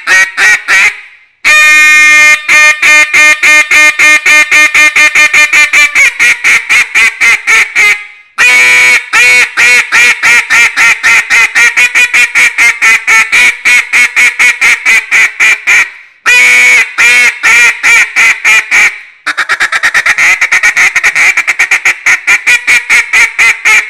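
Big Guy's Best Wide Open duck call, a very loud open-water style call, blown in long strings of duck quacks. Each string starts loud and trails off, and the last few seconds are a quicker run of short notes.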